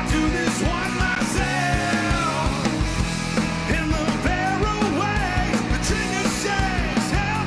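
A rock band playing live: a man sings lead vocals over electric guitars, bass and drums, at a steady loud level.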